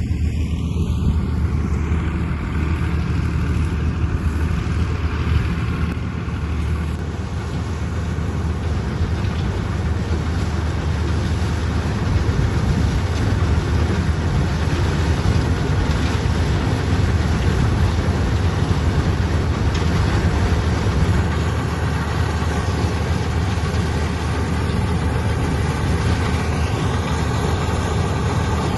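Chardikala combine harvester running steadily, its engine giving a continuous low rumble.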